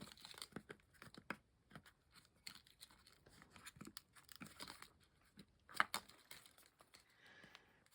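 Faint clicking and scraping of fingers working at a small hard plastic heart-shaped case that will not open, with a louder click about six seconds in.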